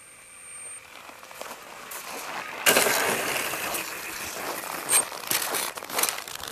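Crunching and rustling noise of footsteps in snow, starting suddenly about two and a half seconds in and going on with irregular crackly strikes.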